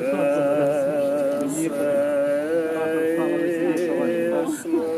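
Music: a slow melody of long held notes with wavering pitch, two or more parts sounding together.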